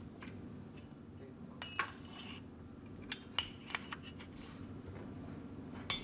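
Scattered light metallic clinks and taps of steel tools against a clamped steel leaf spring, some ringing briefly, with a sharper clink near the end, over a faint steady low hum.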